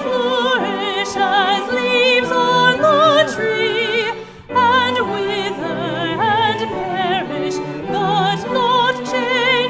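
Choir singing a hymn, the voices with marked vibrato, with a short break between phrases about four and a half seconds in.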